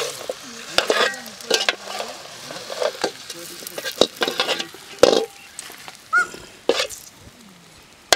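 A metal slotted ladle scraping and knocking against a metal kadai as a banana-leaf-wrapped fish parcel is turned and lifted out, in irregular strokes, over a faint sizzle from the hot pan.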